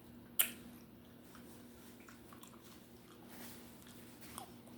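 A person chewing food close to the microphone. There is one sharp bite or mouth click about half a second in, then faint, scattered chewing sounds.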